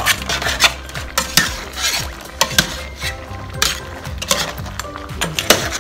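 A ladle stirring a stainless steel pot of crab and squash simmering in coconut milk, scraping and knocking against the pot in irregular clinks.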